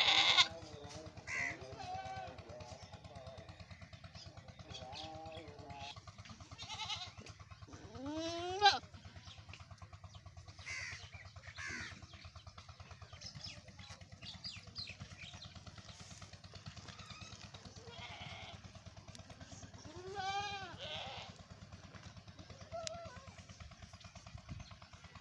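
Goats bleating on and off, several separate wavering calls, the clearest about eight seconds in and again about twenty seconds in, over a steady low hum.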